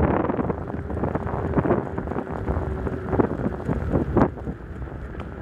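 Wind buffeting a compact camera's microphone as a bicycle rolls fast downhill, a gusting rumble. A faint steady tone runs through the first half.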